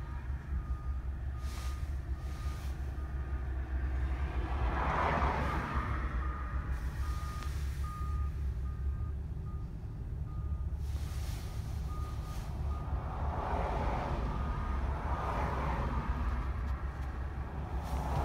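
Backup alarm of a reversing vehicle beeping steadily at about two beeps a second, in three runs with pauses between, heard from inside a moving car over the low rumble of the road. Passing traffic swells up about five seconds in and again near the end.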